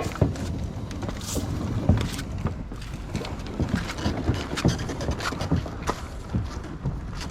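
Canadian canoe hull being run over a boat roller way, a steady low rumble broken by many irregular knocks and clunks as the hull rolls across the rollers.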